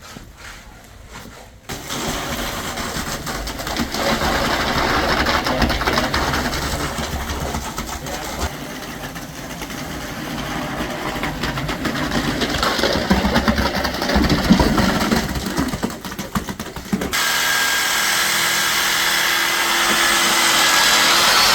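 Concrete mixer truck's engine and mixing machinery running loudly, starting abruptly about two seconds in and switching near the end to a steadier, higher whine.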